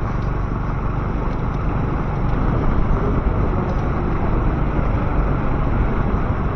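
City street traffic noise: a steady low rumble of passing vehicles.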